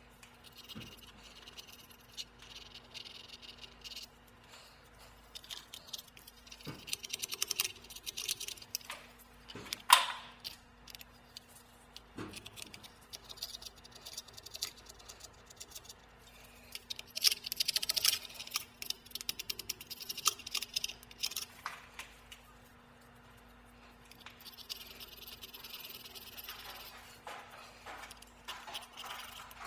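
Scattered clinking and rattling of small metal objects being handled, with a sharp knock about ten seconds in and busier spells around it and again later. A faint steady hum runs underneath.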